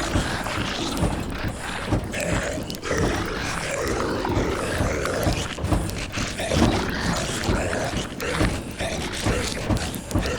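Layered zombie-horror sound effects: creaking and rattling mixed with low zombie groans and moans, over a dense bed of noise.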